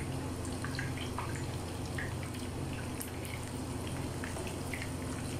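Oil sizzling in a frying pan as a beef chapli kabab shallow-fries, with scattered small pops and crackles.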